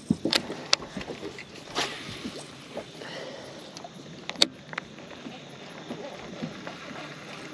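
A few sharp clicks and knocks of handling on a bass boat, the loudest about four and a half seconds in, over a steady hiss of wind and water.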